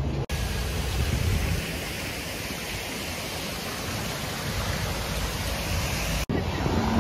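Wind blowing over the microphone: a steady rushing hiss with heavier low rumbling gusts in the first couple of seconds.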